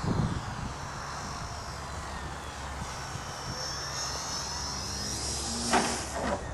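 Radio-controlled Extra 330SC aerobatic model plane's engine and propeller running in flight, a high whine whose pitch slides up and down as the plane moves about. A short low thump at the very start and a louder burst near the end.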